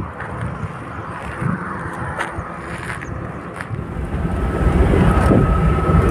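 Outdoor noise of wind and faint traffic beside a highway, then, about four seconds in, the louder low rumble of a car driving at speed on the highway, heard from inside the cabin. A faint steady high tone sounds near the end.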